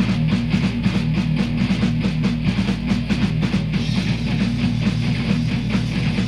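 Guitar-driven background music with a fast, steady beat.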